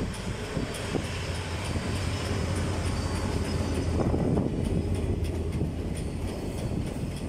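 Passenger train of Russian-built coaches behind an American-built diesel locomotive passing at full speed: a steady low rumble of the train rolling by, with a few wheel clacks over the rail joints.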